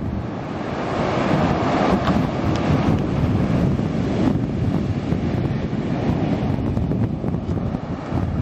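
Sea waves washing onto the beach, one surging in about a second in and drawing back, under heavy wind rumble on the microphone.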